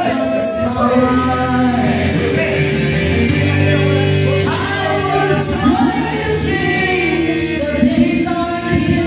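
Karaoke: a woman singing into a microphone over a steady music backing track, breaking off briefly in the middle while the track plays on.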